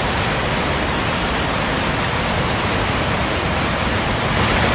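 Steady rushing of water: a loud, even wash of noise with no distinct events.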